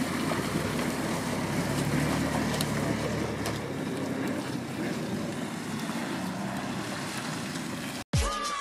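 Lifted Mini Countryman SE All4 driving across rough dry grass, its 1.5-litre three-cylinder petrol engine running with shifting pitch under wind noise on the microphone. The sound cuts off abruptly near the end.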